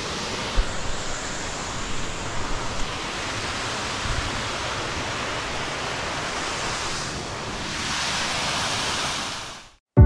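Waterfall rushing steadily, with gusts of wind thumping on the microphone now and then; the rush fades out just before the end.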